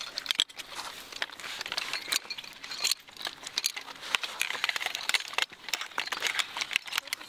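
Metal clicks and clatter of Ak 4 (G3-pattern) rifle parts being handled during field stripping. Many sharp, irregular clicks come close together.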